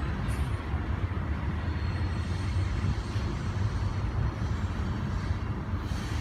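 Freight train of coal gondola cars rolling past: a steady low rumble of steel wheels on the rails.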